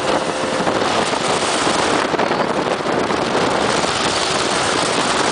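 Small motorboat running at speed on its outboard motor: a steady, loud rush of engine, water and wind on the microphone.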